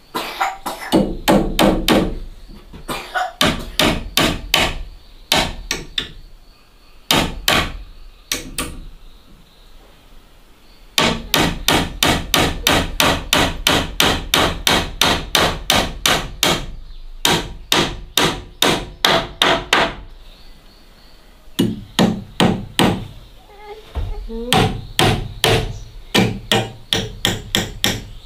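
Hammer driving nails into the wooden door frame: runs of sharp, evenly spaced blows, about three a second, broken by short pauses.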